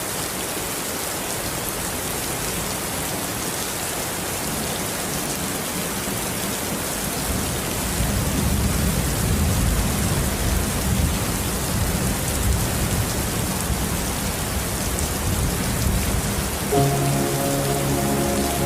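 Steady rain falling, an even hiss. About halfway through a low rumble swells in under the rain and keeps going. Soft music with sustained notes starts near the end.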